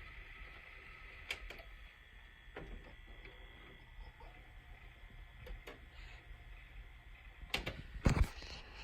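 Faint steady hum and hiss with a thin high tone, broken by a few scattered clicks. There is a louder cluster of knocks about three-quarters of the way through.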